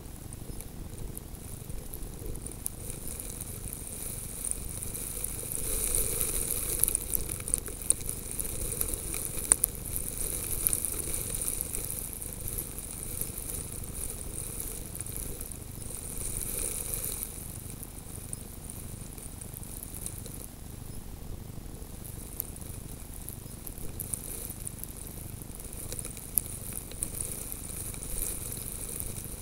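Steady hiss with many small, scattered ticks: fine snow grains pattering against a camera lying in the snow. It swells a little about six seconds in and again around seventeen seconds.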